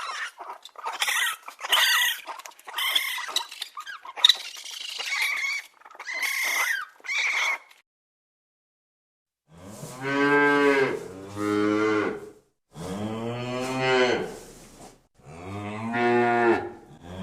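Cattle mooing: several long, low moos one after another in the second half. Before them comes a run of short, rough calls from another animal.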